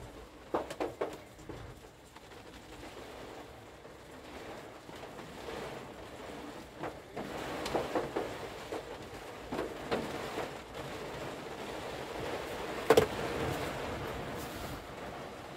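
Rain falling on a car's roof and windscreen, heard from inside the cabin, as a steady patter with a few louder sharp knocks, the loudest about two seconds before the end.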